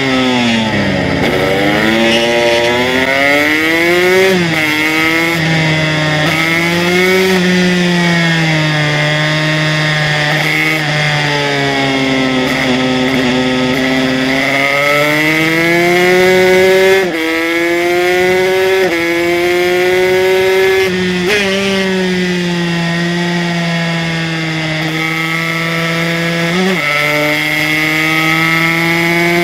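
Aprilia RS125's two-stroke single, bored out to a 144cc HTM Racing kit, being ridden hard on track. Its pitch falls as the bike slows for a corner, then climbs as it accelerates out, with quick sharp drops at upshifts four times in the second half.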